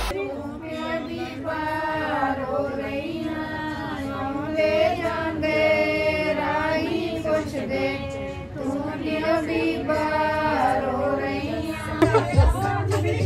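A song with a woman singing a melody. About a second before the end it gives way to a low hum and voices.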